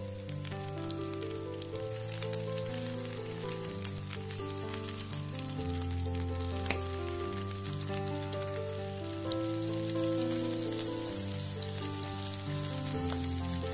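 Tuna patties frying in shallow oil in a non-stick pan: a steady crackling sizzle, with one sharp tap about halfway through. Background music with held notes plays under it.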